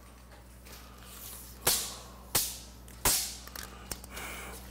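Metal tape measure being drawn out and raised, its blade snapping sharply three times about two-thirds of a second apart, followed by a few softer clicks.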